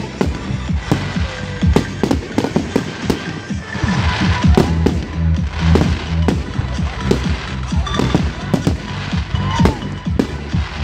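Fireworks display: many aerial fireworks bursting in quick succession, sharp bangs and crackles, over music with a steady repeating bass.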